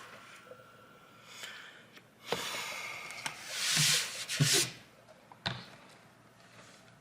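Handling noise: about two seconds of rubbing hiss with a few light clicks, then quiet.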